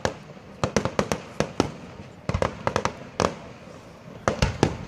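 Aerial fireworks shells bursting in a rapid, irregular series of sharp bangs, coming in clusters with short lulls between them.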